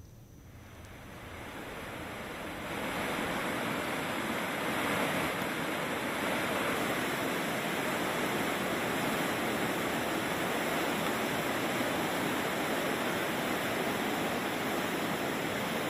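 Steady rushing of heavy floodwater pouring and churning, fading in over the first few seconds and then holding level.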